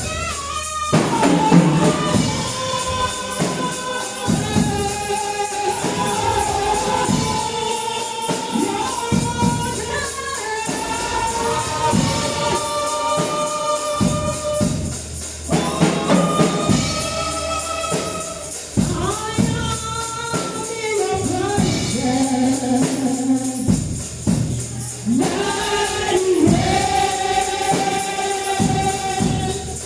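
Gospel choir singing in unison with a tambourine shaken in a steady beat, in the style of church praise music.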